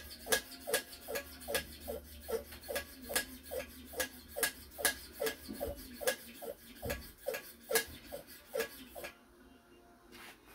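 Hand pump on a pressure kerosene lantern's fuel tank being worked in quick, even strokes, nearly three a second, pressurising the tank, which holds little fuel; the pumping stops about nine seconds in.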